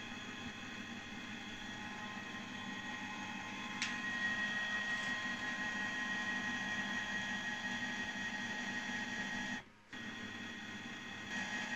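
Canon inkjet printer running, a steady mechanical whir with a high whine; a click about four seconds in, after which it runs louder, and the sound drops out for a moment near the end.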